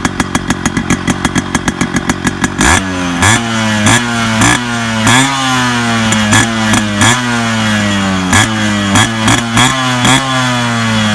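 Yamaha RX100's two-stroke single-cylinder engine idling with an even pulse, then revved in about a dozen quick throttle blips from about three seconds in, each jumping up in pitch and sliding slowly back down.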